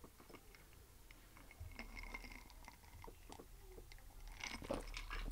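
Faint sips and swallows from a glass, close to the microphone: a run of small soft mouth and throat sounds, a little louder near the end.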